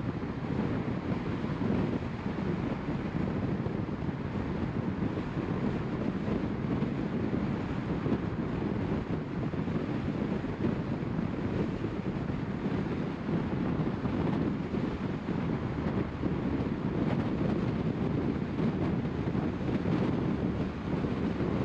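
Steady road noise of a car driving along: tyre rumble and wind noise, even throughout with no separate events.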